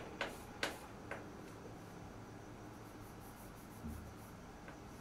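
Chalk tapping and scratching on a blackboard, with several sharp taps in the first second, then a soft low thump a little before the end.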